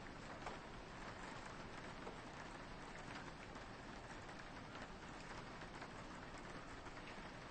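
Soft, steady rain pattering on a window, with many small drops ticking against the glass.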